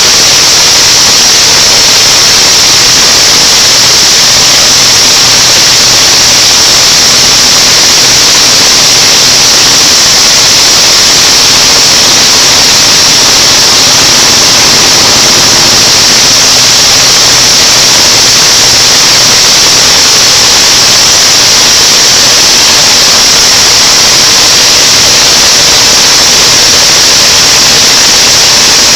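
A plastic-drying machine's high-pressure blower running, a loud, steady rushing hiss of air with a faint low hum beneath.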